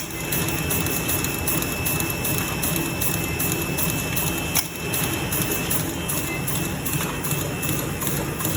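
Khaini filter-pouch making and packing machinery running: a steady mechanical clatter with a fast, even repeating beat and a thin steady whine, with a sharp knock about four and a half seconds in.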